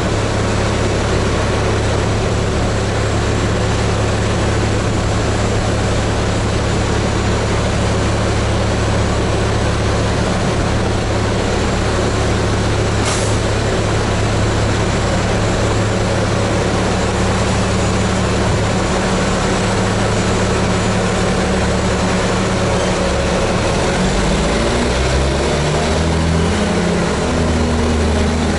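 Caterpillar 730 articulated dump truck's diesel engine running steadily, with a short sharp click about halfway through. Near the end the engine note shifts in steps.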